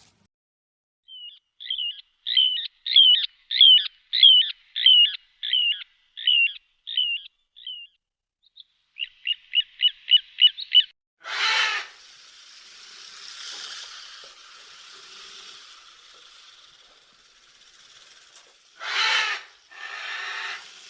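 An animal's high chirping calls: a run of about a dozen down-sliding chirps, roughly two a second, that fade away, then a quick burst of faster chirps. These are followed by two loud harsh calls a few seconds apart, with a rough hiss between them.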